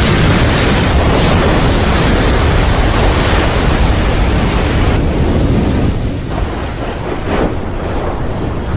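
Film sound effect of a giant wave and wind: a loud, steady rushing noise with a deep rumble, its hiss thinning out about five to six seconds in.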